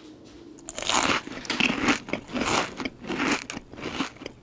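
A person chewing a mouthful of food close to the microphone, a run of short chewing crunches about two to three a second, starting under a second in.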